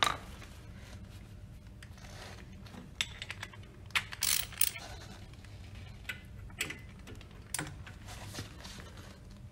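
Scattered sharp metal clicks and a short burst of ratcheting as the bolts of a centrifugal pump's seal cover are worked with a ratchet and a torque wrench, over a steady low hum.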